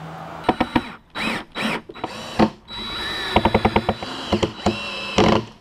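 Cordless drill running in several short bursts with a whining pitch that rises and falls, fastening mounting hardware into the side of a plastic cooler. The longest burst comes near the end.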